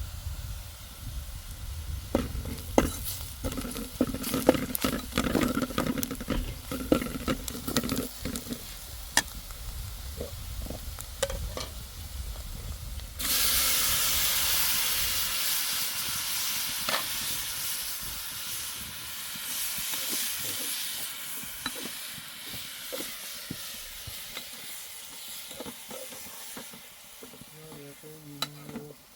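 Food frying in a pan over a small open fire, with stirring. Scattered clinks and scrapes at first; about thirteen seconds in a loud sizzle starts suddenly, as when food goes into hot oil, then slowly dies down while the stirring goes on.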